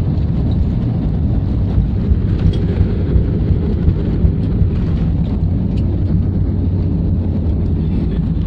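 Airliner cabin noise as the plane rolls along the runway: a loud, steady low rumble of jet engines and wheels on the runway, with a few light knocks in the middle.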